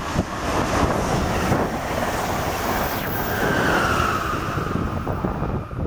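An Amtrak train hauled by an ACS-64 electric locomotive passes close at speed, a steady loud rush of wheels on rail and displaced air. A whine rises and fades about halfway through. Wind buffets the microphone throughout.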